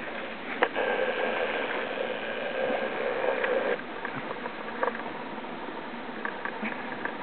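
A dog wading in a shallow stream, its legs sloshing and splashing through the water, with a few sharp little splashes. From about a second in until nearly four seconds, a louder, steady noise with a faint held tone sits over the water sounds.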